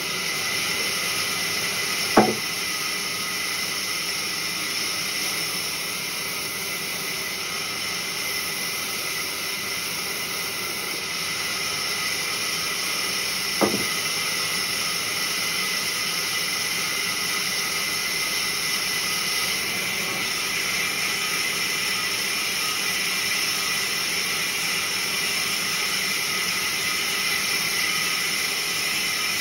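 Sawmill band saw running and ripping through logs, a steady high-pitched hiss and whine. Two sharp knocks stand out, one about two seconds in and one near the middle.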